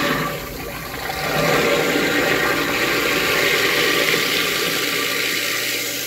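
Kitchen garbage disposal running with a steady low motor hum while cold tap water rushes down into it; the rush grows louder about a second in. The disposal is running smoothly after its ice clean-out.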